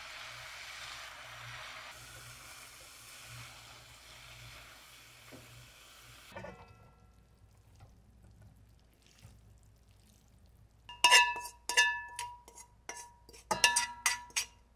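Chives and crumbled tofu sizzling in a frying pan while being stirred, cutting off abruptly about six seconds in. Near the end, a quick series of sharp metallic clinks with short ringing tones as the pan knocks against a stainless steel mesh strainer and bowl while the filling is emptied into it.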